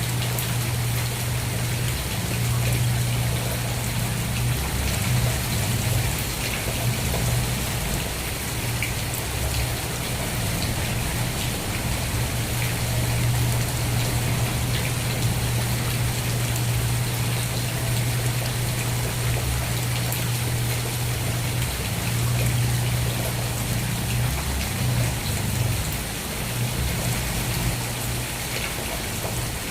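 Steady rain falling, with scattered drops ticking through it, over a low, steady rumble underneath.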